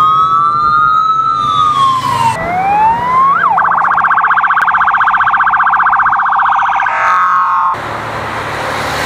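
Police escort sirens sounding: a slow rising-and-falling wail, then a fast warble for about three seconds, giving way near the end to a steady rush of noise.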